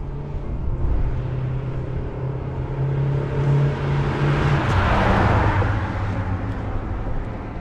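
A 1965 Dodge Coronet's 361 cubic-inch V8 with dual exhaust drives up and passes close by. Its note climbs as it approaches and is loudest about five seconds in, then drops in pitch as the car moves away.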